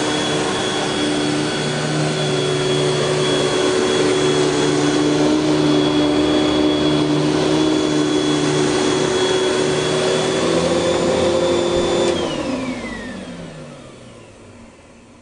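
Panasonic Jet-Flo MC-6210 upright vacuum cleaner's motor running steadily with a high whine, then switched off about twelve seconds in and spinning down, its pitch falling as it fades.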